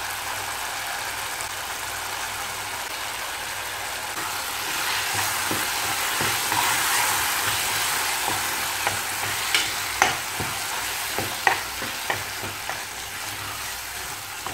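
Freshly added ground masala paste frying with onions and tomatoes in hot oil, sizzling steadily and louder a few seconds in. From about two-thirds of the way through, a spoon scrapes and knocks against the pan in short sharp clicks as it is stirred.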